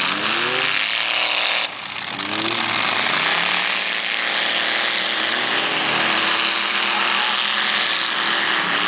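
Mud-bog pickup truck engines revving hard while powering through a mud pit; the engine pitch climbs and falls near the start and again a couple of seconds in, then holds steadier, over a constant loud hiss.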